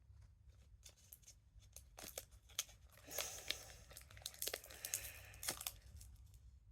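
Foil Pokémon booster pack wrapper being crinkled and torn open, with scattered small clicks and rustles.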